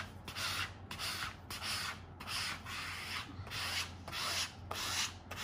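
Plastic burnisher rubbed back and forth over the paper backing of a dry mounting adhesive sheet on the back of a print, a scraping rub about twice a second. This is the final burnishing pass that presses the adhesive onto the paper so it stays on when the backing is peeled.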